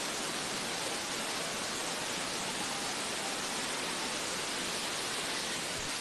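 Waterfall and its rocky stream rushing steadily: an even, unbroken hiss of falling and cascading water.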